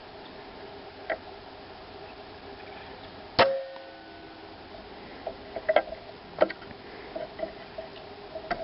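An Air Arms S510 pre-charged pneumatic air rifle firing once, about three and a half seconds in: a sharp crack followed by a brief metallic ring. A few lighter clicks come before and after it.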